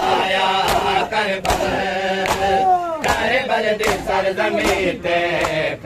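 A crowd of men chanting a Punjabi noha in unison, with the sharp slaps of hands striking bare chests (matam) keeping a steady beat a little more than once a second.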